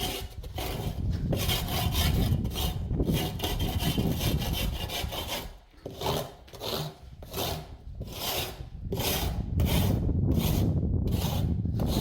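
Trowel scraping across wet cement in repeated strokes, smoothing the surface.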